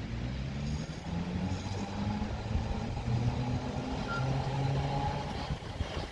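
Boston Elevated Railway electric streetcar pulling along the track, its motors and gearing humming with a shifting pitch over the rumble of wheels on the rails, getting louder as it nears.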